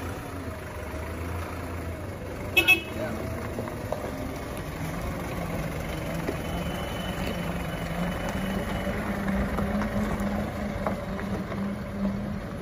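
Box truck's engine running as it pulls away, with two short horn toots about two and a half seconds in. From about five seconds in the engine note steadies and grows somewhat louder.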